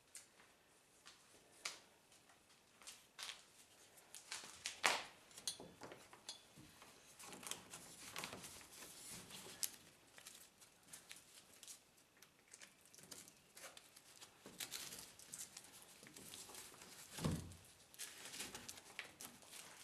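Hook-and-loop (Velcro) strap grab handles being wrapped and fastened around a side-by-side's roof bar by hand: faint rustling with scattered small clicks and taps, and one duller thump near the end.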